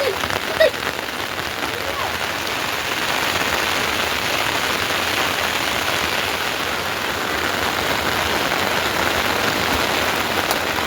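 Heavy rain falling steadily, an even, dense hiss of drops. There is a brief sharp sound about half a second in.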